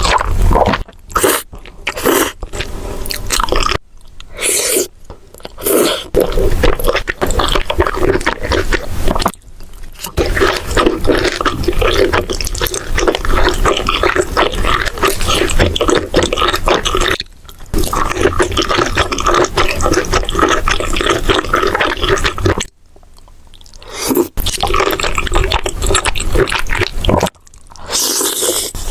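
Close-miked eating: wet chewing, crunching and slurping of food in quick succession, broken by several brief, abrupt pauses.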